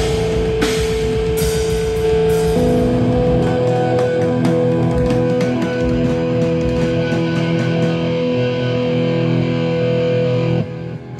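Heavy metal band playing live: distorted electric guitars hold long sustained notes, with drum hits at first, and the notes shift up in pitch about two and a half seconds in. Near the end the music cuts off suddenly as the song finishes.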